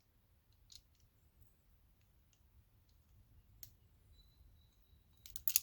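Small clicks from hands handling a wire, a crimp-on spade connector and a crimping tool. A few faint scattered clicks are followed, near the end, by a quick cluster of louder clicks.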